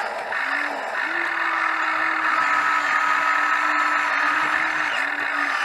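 Excavator engine running steadily under load, its pitch dipping and recovering a few times as it works.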